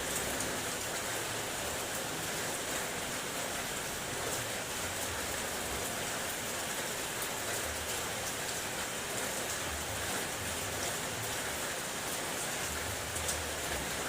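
Steady rain on a car's body, heard from inside the car: a dense even hiss with many individual drops ticking. A faint low rumble comes and goes underneath.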